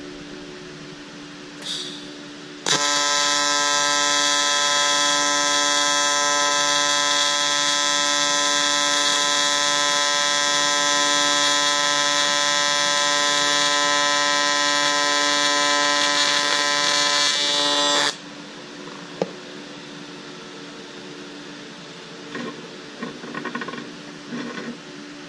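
TIG welding arc buzzing steadily for about fifteen seconds, starting and cutting off abruptly, with a short hiss just before it strikes. The bead is still running a little hot.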